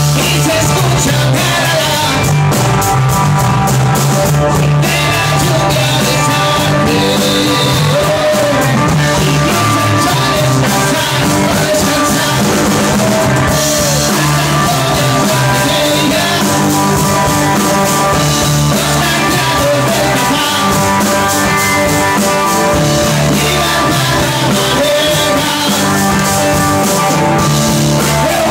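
A live rock band playing loudly: electric guitar, drum kit and a man singing into a microphone.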